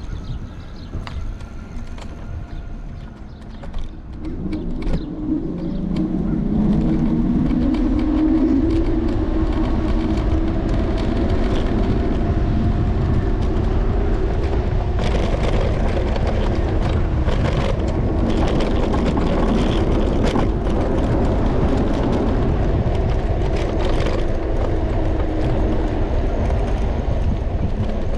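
Riding an electric scooter on city streets: steady rumble and wind noise, with a whine that rises in pitch about four seconds in and then holds steady, getting louder as the scooter gets up to speed.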